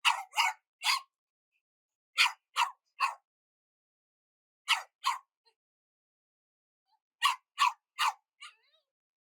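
A dog barking angrily in quick sets: three barks, then three more, then two, then three with a fainter fourth near the end. There is dead silence between the sets.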